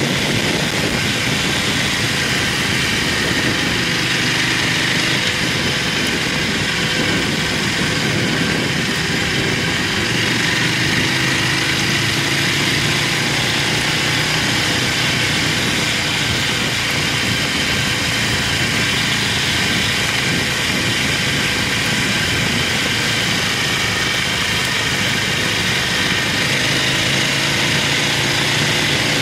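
Buell motorcycle engine running at cruising speed, its pitch slowly rising and falling with the throttle, under a steady rush of wind and road noise on an external microphone.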